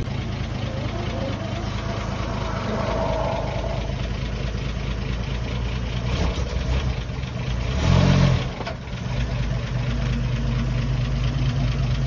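The old step-van ice cream truck's engine idling steadily, with one brief rev about eight seconds in.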